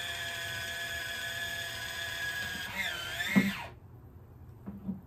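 Kitchen Mama battery-powered electric can opener's motor running with a steady whine; about three seconds in its pitch wavers, and it stops with a sharp click. The run has not opened the can, which she thinks is because the opener was placed wrong.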